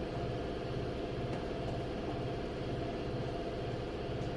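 A steady low mechanical drone that throbs about once a second.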